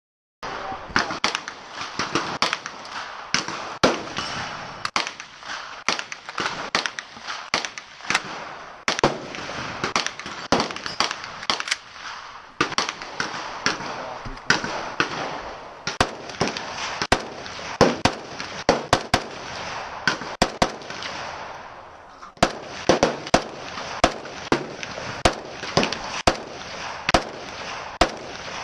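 Gunfire at a shooting range: a long string of sharp shots, about one or two a second and irregularly spaced, with a short lull about three-quarters of the way through.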